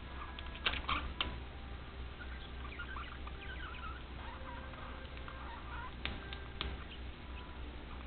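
Two caged budgerigars chattering softly in quick, warbling chirps, with a few sharp clicks about a second in and again around six seconds in.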